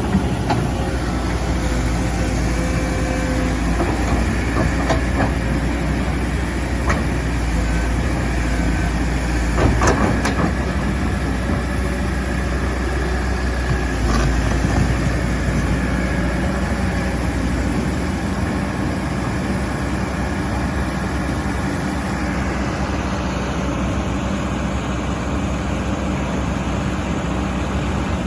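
Hydraulic excavator's diesel engine running steadily under load, with a few sharp clanks and knocks, the loudest about ten seconds in.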